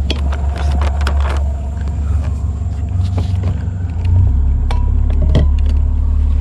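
Bass boat outboard motor running at low speed, a steady low rumble with scattered light knocks. It gets louder about four seconds in.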